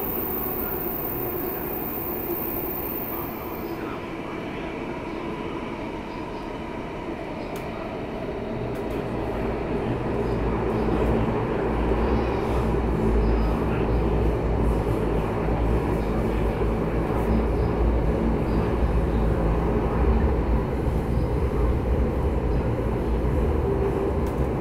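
Singapore MRT metro train running, heard from inside the carriage: a steady rumble of wheels on rail. A faint high whine stops about four seconds in, and from about ten seconds in the running grows louder and deeper.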